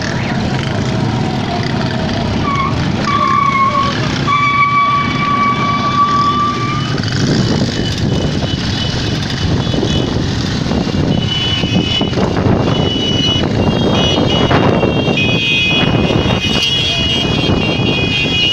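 Engines of a wedding convoy of cars and motorbikes with horns honking. One horn sounds a couple of short toots about two seconds in, then holds for about three seconds. In the second half several higher-pitched horns sound together over the engine noise.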